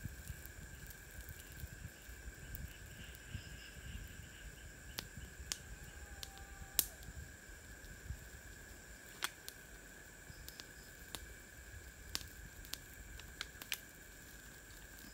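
Campfire crackling with scattered sharp pops over a steady high drone of forest insects. About six seconds in, a faint wavering cry is heard, a person shouting somewhere in the forest.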